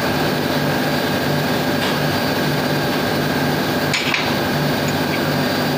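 Steady engine-room machinery drone with a rhythmic low pulse, and a sharp metallic clink of a steel spanner against the fitting about four seconds in, with a fainter one near two seconds.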